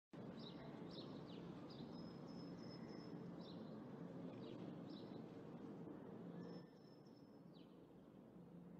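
Faint outdoor ambience with a steady background hiss and small birds chirping now and then, including a couple of short held whistled notes.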